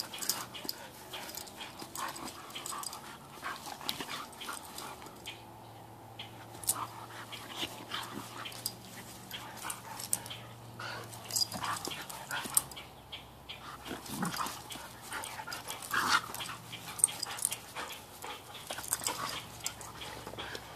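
A Siberian husky and a shaggy black dog play-fighting: short, scattered bursts of play-growling and whining.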